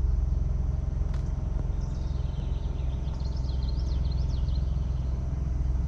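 Ford Bronco's engine idling steadily, heard from the open-topped cabin, with a single click about a second in. Birds chirp faintly from about two seconds in.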